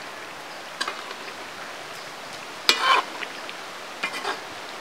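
A metal ladle stirring and scraping in a large steel pan of chicken curry: a few short scrapes, the loudest just past halfway, over a steady hiss.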